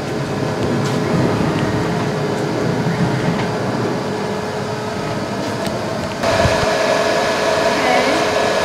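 ShopBot CNC router's gantry being jogged along its rails by its stepper motors: a steady mechanical rumble over a constant hum. About six seconds in the sound changes abruptly and a steady tone joins it.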